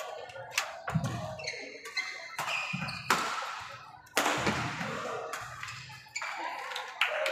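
Badminton doubles rally: rackets strike the shuttlecock in a quick, irregular series of sharp hits, with shoes squeaking on the wooden court floor between them.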